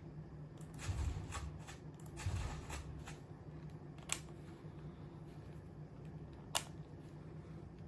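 Rustling, handling noise in two short bouts, then two sharp single clicks about two and a half seconds apart.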